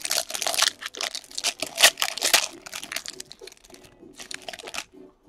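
Trading card pack's foil wrapper crinkling and tearing as it is opened by hand, in irregular crackly bursts that are busiest for the first three seconds and then thin out.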